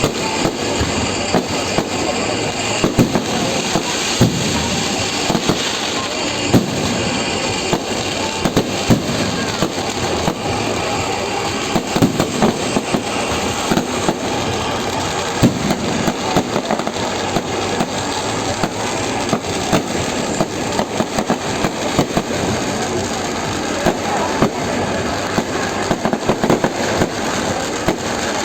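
Fireworks display going off without a break: a dense run of bangs and crackles with many sharp reports.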